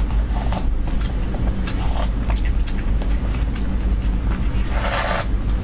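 Close-miked eating: scattered small clicks and mouth sounds, then a loud noisy slurp of noodles about five seconds in, over a steady low rumble.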